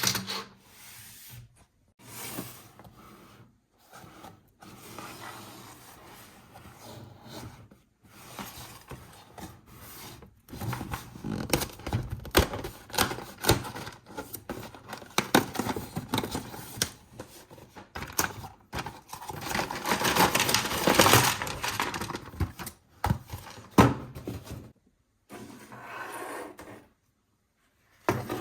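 Toys and their packaging being handled and unboxed: irregular scraping, rubbing and clicking, with brief pauses and the busiest handling in the middle.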